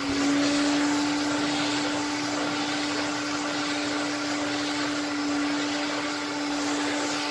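1960 Sears Lady Kenmore Kenkart vacuum cleaner running on high with its suction relief valve open: a steady motor hum over a rush of air.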